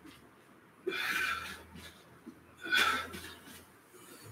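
A man breathing out hard twice from exertion during a warm-up drill, each breath about a second long.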